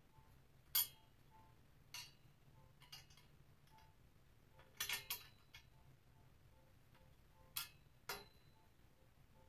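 Sharp metal clinks from the steel parts of a clothes rack being worked together at the top of its chrome upright, where a tight connector will not slide on. The clinks are scattered and irregular: a loud one about a second in, a quick run of three about five seconds in, and two more near the end.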